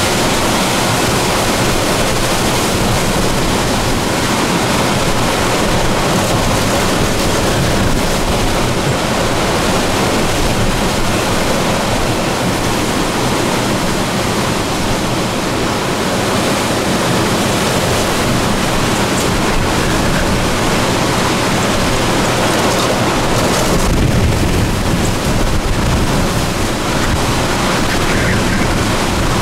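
Hurricane-force wind blowing loud and steady, with wind buffeting the microphone; it gusts harder about 24 seconds in.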